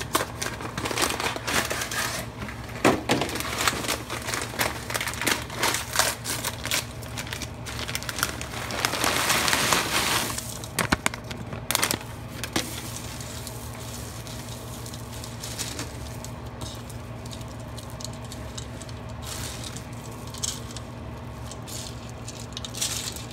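Dry boxed stuffing mix tipped into a pot of crumbled cornbread and worked in by hand: dense crackling of the dry crumbs and packaging, a louder pouring rush about nine seconds in, then quieter, scattered crackles as the hands squeeze and turn the mixture.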